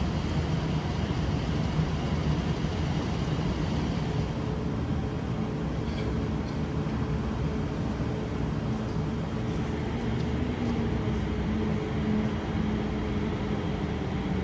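Steady city street ambience: a continuous low hum of traffic and urban background noise.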